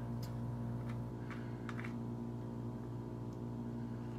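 Steady low electrical hum, with a few faint clicks and rustles from a spoon and a taco being handled.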